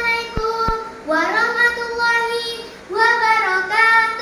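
A young girl singing alone without accompaniment, in three phrases of held notes that glide up into each phrase.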